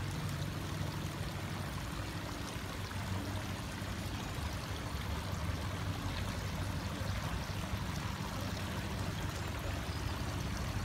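Water from the Medici Fountain spilling over its stepped stone basin into the pond, a steady trickling and splashing.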